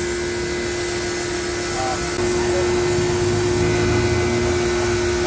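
Pressure washer spraying a jet of water into the front of a car to flush dirt out of its air-conditioning condenser and radiator, the washer's motor humming steadily under the hiss of the spray.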